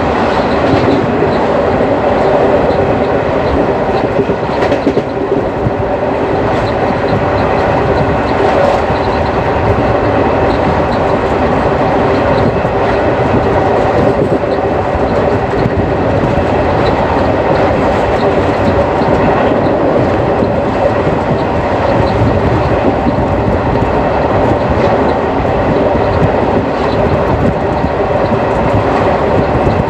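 Indian Railways ICF passenger coach running along the track: a steady rumble of the coach with the clatter of wheels on rails and occasional clicks.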